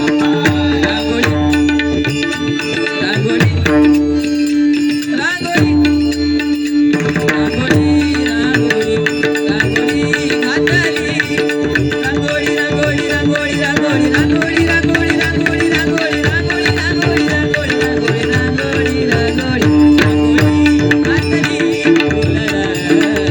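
Instrumental bhajan accompaniment: a tabla playing a busy rhythm under steady held notes.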